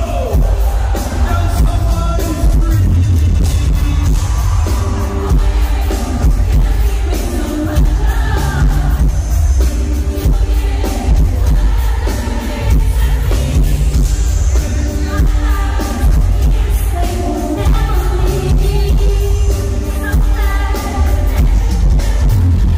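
Live R&B concert music: a woman singing over a loud backing track with a heavy bass beat.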